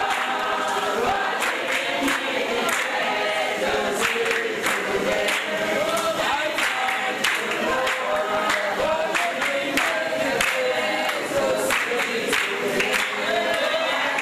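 A crowd singing together in chorus, with hand-clapping along to the song.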